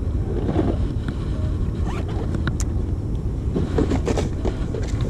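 Steady low rumble of wind buffeting an action-camera microphone on an open boat, with a few sharp clicks from handling fishing tackle about two seconds in.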